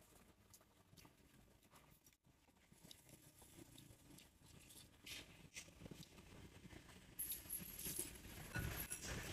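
Faint small clicks and scrapes of wooden chopsticks and a metal spoon against a ceramic bowl and plate as congee is scooped up and eaten. A low rumbling hiss builds near the end.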